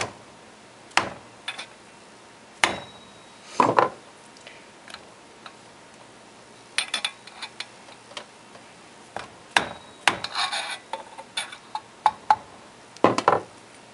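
Metal tool tapping a bearing seal down into its seat in the drive end of a WEG electric motor: irregular light knocks, some single and some in quick clusters, as the seal is driven in.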